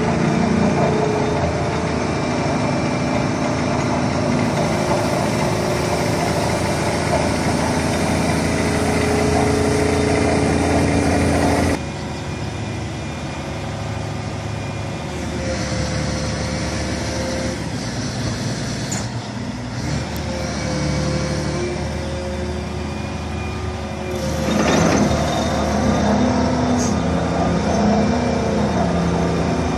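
Demolition excavator's diesel engine running while its long-reach boom and crusher attachment move. The sound drops abruptly about twelve seconds in and swells again near twenty-five seconds, with a wavering tone that rises and falls toward the end.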